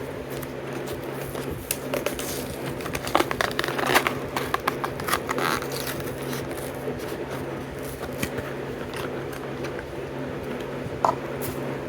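Plastic blister packaging of a carded Hot Wheels die-cast car being opened by hand: crinkling and crackling plastic with scattered clicks, busiest in the first half, over a steady low hum.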